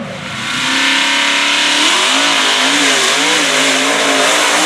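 Small grey mud truck's engine revving hard as it charges through a mud pit, the revs surging up and down again and again, under a loud rushing noise.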